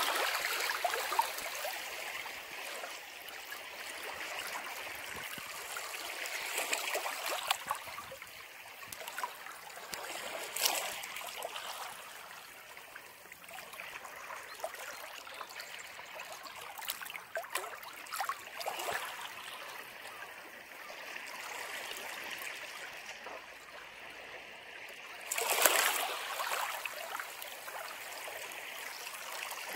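Ocean waves breaking and washing back in a steady rush. Louder surges come about eleven seconds in and again, strongest, about twenty-five seconds in.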